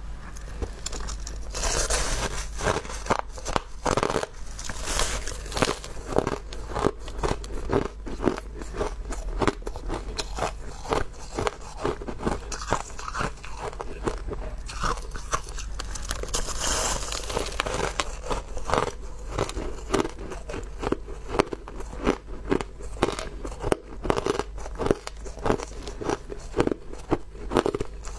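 Hard ice being bitten and chewed close to the microphone: dense, rapid crunching all through, with louder bites every few seconds. A steady low hum runs underneath.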